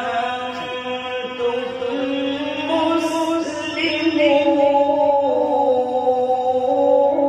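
A man's voice reciting the Quran in Arabic in the melodic qirat style, with long held notes that slide slowly from pitch to pitch.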